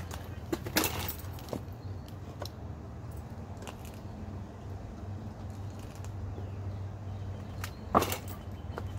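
Small scooter engine running with a steady low hum while the throttle grip is worked by hand. Sharp clicks and knocks sound about a second in and again near the end, the loudest one near the end.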